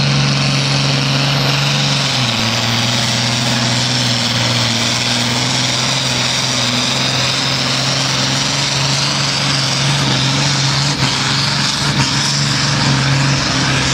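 FIAT 1300DT tractor's diesel engine running flat out under heavy load as it pulls a sled, pouring black smoke. A loud, steady drone whose pitch dips slightly about two seconds in and then holds.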